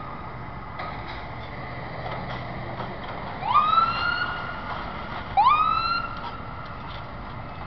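A siren sounding two whoops a couple of seconds apart, each rising quickly and then holding and slowly sagging in pitch, over a steady background rumble.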